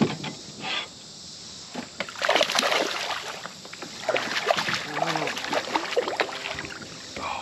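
Water splashing and sloshing beside a kayak as a hooked bass thrashes at the surface during the fight, in two uneven spells, loudest about two seconds in.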